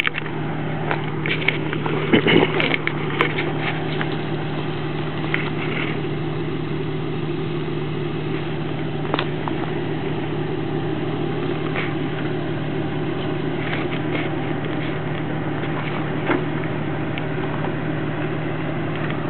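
Jeep Wrangler TJ's engine idling steadily with a constant low hum, with a few light clicks and knocks in the first few seconds.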